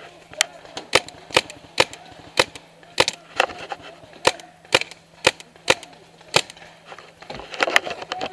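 BT4 paintball marker firing a steady string of single shots, about two a second, each a sharp pop, with a short pause near the end.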